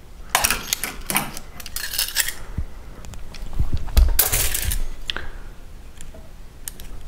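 Metal clinking and rattling from a tube-flaring tool and a metal hydraulic tube being handled and taken apart, in several short bursts, the loudest about four seconds in.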